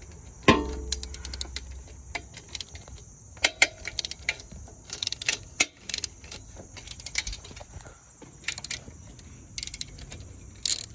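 Hand ratchet and socket clicking in short runs, with metal tools clinking, as the front exhaust header nuts are worked off their studs; one ringing metal clink about half a second in.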